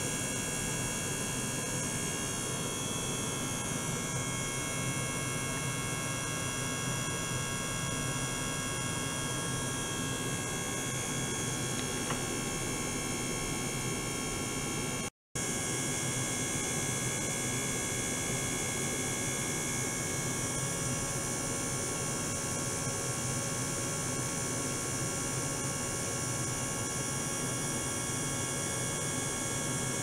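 Steady electrical hum from an ultrasonic test setup in a water tank, with several steady high-pitched tones over it. It cuts out for an instant about halfway through.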